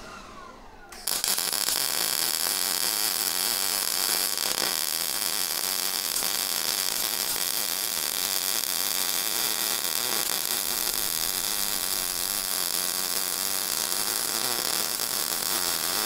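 MIG welding arc struck about a second in and held without a break, a steady hiss, as a continuous bead is run around a steel pipe turning in a rotary welding positioner.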